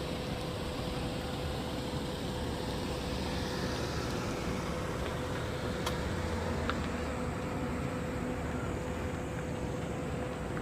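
Steady rumble of a boat's diesel engine running, with a constant hum over it and a couple of faint clicks.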